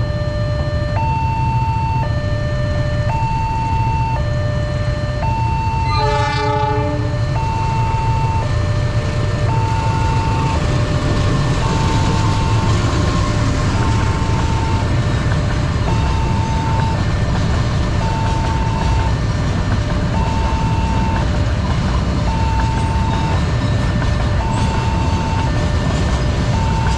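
Level-crossing warning alarm sounding a two-tone signal that switches between a higher and a lower tone about once a second. Under it, a diesel freight train of fuel tank wagons passes with a steady low rumble; the locomotive's horn gives one short blast about six seconds in, and the wagons' wheels rattle on the rails from about ten seconds on.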